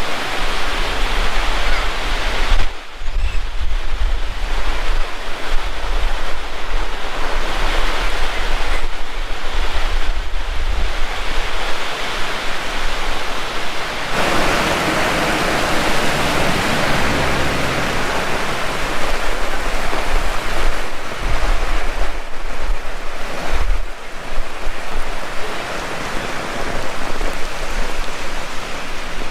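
Heavy rain pouring steadily, swelling louder for a few seconds around the middle, with gusts of strong wind buffeting the microphone as low rumbles.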